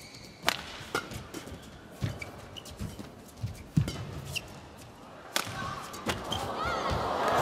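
Badminton rally in an indoor arena: a string of sharp racket-on-shuttlecock hits, sometimes under a second apart, with short squeaks of shoes on the court. Crowd noise swells near the end as the rally closes.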